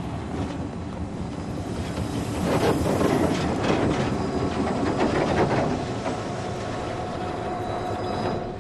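Diesel-hauled train, mostly freight wagons, rolling past, its wheels clacking over the rail joints. The train is loudest in the middle; after about six seconds the clatter eases and a steady high tone remains.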